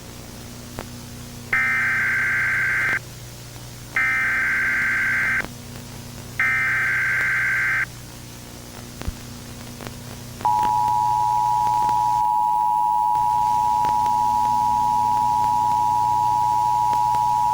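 Emergency Alert System tones: three short screeching bursts of digital SAME header data, then, about ten seconds in, the steady two-tone EAS attention signal, held to the end. A steady low hum runs underneath.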